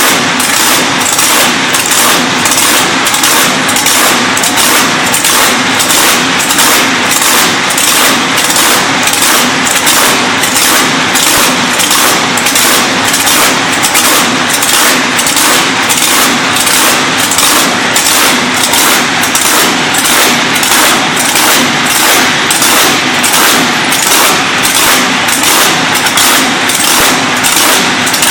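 1400 hp speed boat engine idling very loud and rough, with an even lope of about two pulses a second.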